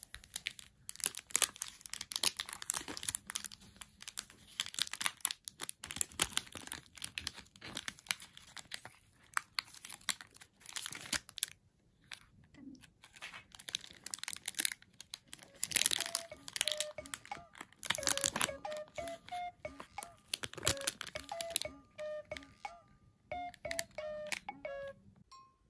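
Crinkling and tearing of a roll cake's pleated paper cup and wrapping as hands peel it away from the sponge. Light background music with short repeated notes comes in during the second half.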